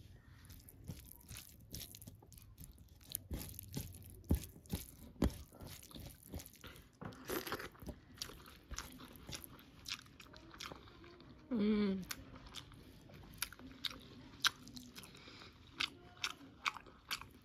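Someone eating, with irregular crisp crunches and chewing of crunchy food close to the microphone. About twelve seconds in there is a brief voice-like sound that falls in pitch.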